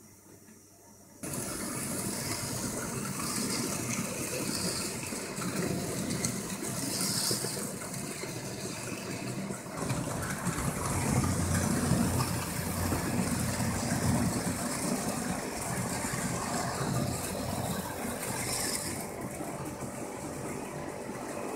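OO-gauge model train running along the track, a steady mechanical noise with a strong low rumble that starts abruptly about a second in.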